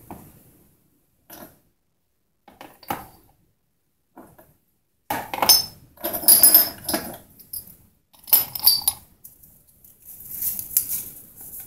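Cast aluminum scrap parts clinking and knocking against one another as they are set down one at a time on a digital kitchen scale, in several separate clusters, the busiest about halfway through. A softer rustle follows near the end.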